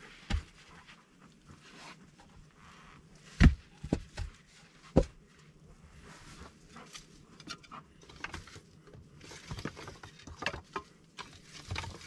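Irregular knocks and rustling, with a sharp thud about three and a half seconds in and a few lighter knocks after it.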